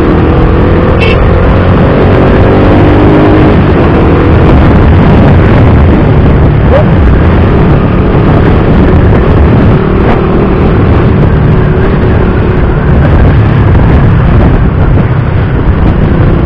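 Wind rushing over the microphone of a Rusi Bantul scooter in motion, with the scooter's engine running underneath. A rising engine note can be heard in the first few seconds as it speeds up.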